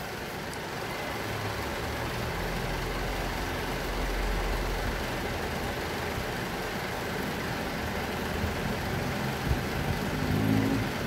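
Steady low background rumble and hiss, swelling a little about four seconds in.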